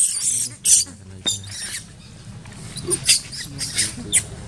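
Macaque monkeys squeaking and screeching in short, high-pitched bursts. The calls are densest and loudest in the first second, then come as scattered brief squeaks.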